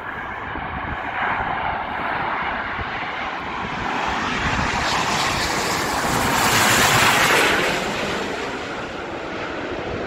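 Twin-engine widebody jet airliner on final approach with its landing gear down, passing low directly overhead: the jet engine noise builds to its loudest and harshest about seven seconds in, then falls away as the aircraft moves off.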